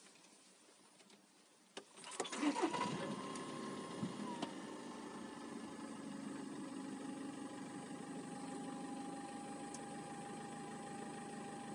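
Seat Leon 5F started up: a click, then the engine cranks and catches about two seconds in and settles into a steady idle. A steady high whine sits over the idle and drops a little in pitch a couple of seconds after the start. This is the noise that appeared after the in-tank fuel pump was replaced.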